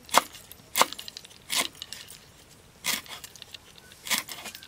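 Cleaver chopping garlic cloves on a thick round wooden chopping board: five sharp knocks at an uneven pace.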